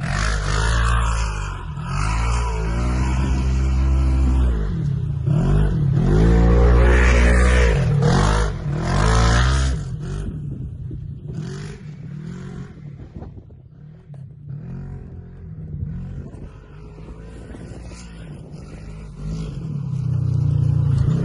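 Polaris RZR 1000 side-by-side's twin-cylinder engine revving hard several times, its pitch rising and falling, then dropping to a quieter, lower running for several seconds before revving up loudly again near the end.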